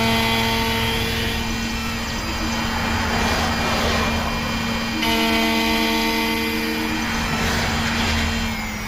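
Xhorse Dolphin XP-005 automatic key cutting machine milling an aluminum key blade: a steady motor hum with cutting noise, and higher tones that come in for a couple of seconds at the start and again about five seconds in. The hum stops shortly before the end as the cut finishes.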